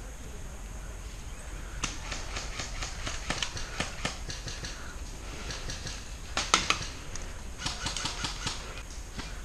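Airsoft fire: three runs of sharp clicking snaps from BB shots, starting about two seconds in, the loudest cluster about six and a half seconds in.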